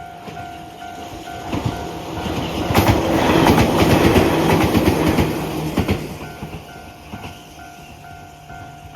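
Ohmi Railway train passing over a Japanese level crossing, its wheels clicking over the rail joints, loudest about three to five seconds in. The crossing's alarm bell rings steadily throughout and stops near the end.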